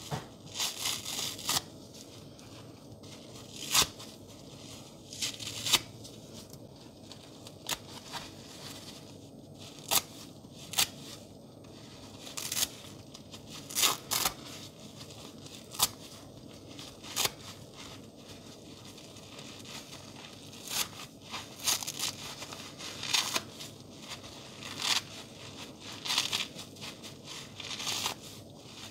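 Soapy sponge being ripped apart by hand into chunks: a series of short, crisp tearing and crackling sounds, one every second or two at an irregular pace.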